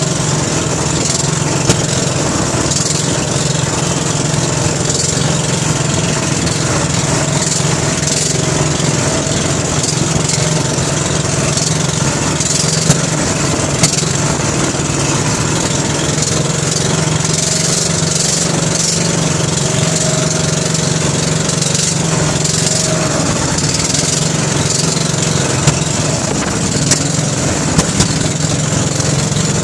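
Outrigger boat's motor running steadily at cruising speed, mixed with the hiss of wind and water spray. A few sharp knocks stand out, from the hull hitting waves on a bumpy crossing.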